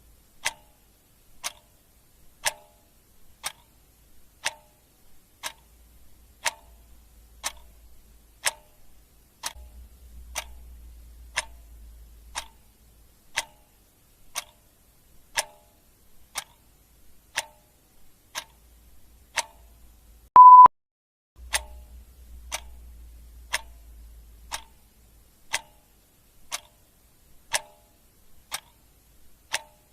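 Clock ticking steadily in an even tick-tock, about one strong tick a second with a weaker one between. About two-thirds of the way in comes a single short beep, louder than the ticks.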